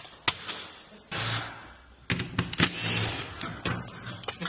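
Metal garage door hardware and tools being handled: a sharp click, a brief rushing scrape about a second in, then a run of quick clicks and clanks.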